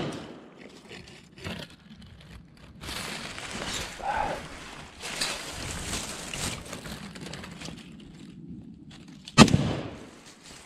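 Dry leaves rustling and crunching as a prone shooter shifts his rifle and body, then a single loud rifle shot about nine seconds in.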